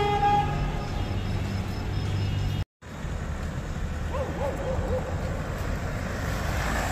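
Road traffic: a steady low rumble of passing cars, with a short car horn right at the start. The sound cuts out for a moment a little under three seconds in.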